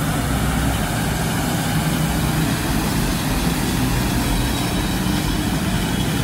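Isuzu street sweeper truck working with its side brushes down on the road: a steady, heavy engine and machinery noise as it moves slowly along.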